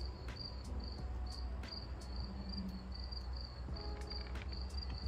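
Crickets chirping steadily, short high chirps about two to three times a second, over a low steady background rumble, with a few faint scattered clicks.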